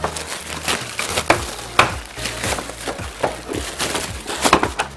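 Clear plastic packaging bag crinkling and rustling in irregular crackles as a black plastic part is pulled out of it, the loudest crackles about two seconds in and near the end.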